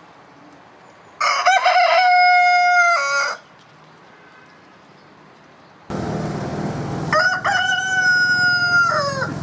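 Two roosters crowing one after the other, each crow about two seconds long: the first about a second in, the second a few seconds later over a steady low background noise.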